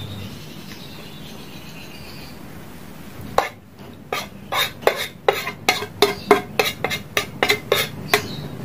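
Metal spoon scraping sauce off a ceramic plate, knocking against it. A few seconds in comes a quick run of about fifteen sharp clinks, roughly three a second.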